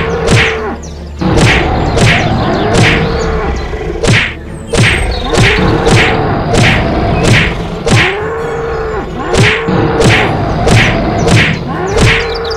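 Cartoon fight sound effects: bulls mooing again and again, each moo rising and falling in pitch, over a steady run of thuds and whacks landing about every half second.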